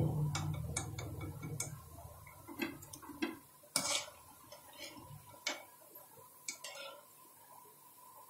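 A steel wire skimmer knocks and scrapes against the rim and sides of an aluminium kadhai while fried onion pakoras are lifted out of hot oil. It makes a scattered run of sharp metallic clicks, the loudest near the middle. A low hum fades away over the first couple of seconds.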